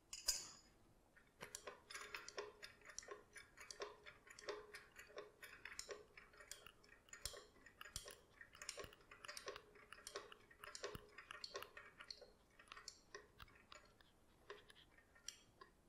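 Floor jack under an engine cradle being let down through its release valve: one sharp click, then irregular light metallic clicks and creaks, several a second, as the load settles on the jack.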